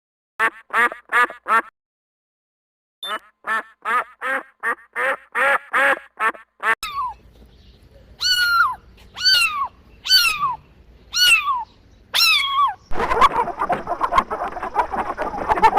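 A duck quacking in two quick runs of short, evenly repeated calls, followed by about six separate calls that fall in pitch. Near the end, a flock of chickens clucking over one another.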